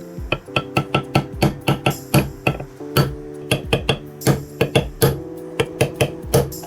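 Background music with sustained chords and a quick run of sharp clicks.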